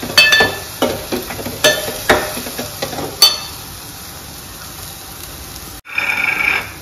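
Steel spoon stirring green chillies into cooked gongura in an aluminium pot, knocking and scraping against the pot about five times in the first few seconds, each knock with a short metallic ring. A low sizzle runs underneath, and a brief ringing scrape comes near the end.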